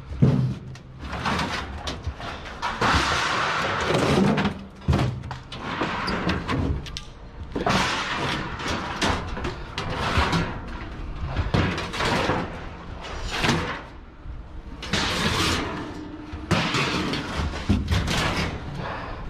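Large metal appliances, a hot water cylinder among them, being dragged and shifted inside a steel mesh trailer cage: repeated scraping with clanks and knocks as they bump the cage and each other.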